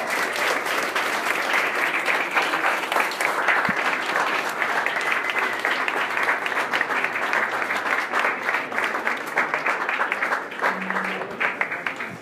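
Audience applauding: a dense spread of hand claps that thins out near the end.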